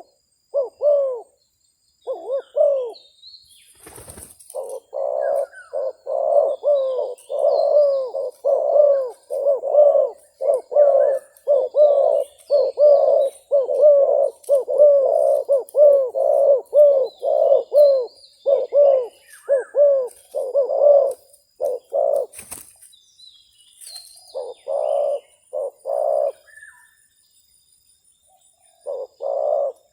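Spotted doves cooing back and forth in a rapid, unbroken series of repeated coos, thinning out near the end: a caged decoy dove and a wild dove calling against each other in a territorial duel. Two sharp knocks sound, a few seconds in and again about two-thirds of the way through, while small birds chirp faintly in the background.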